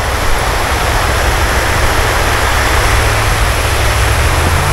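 Steady rush of water spilling over a low stone weir, with a low rumble underneath.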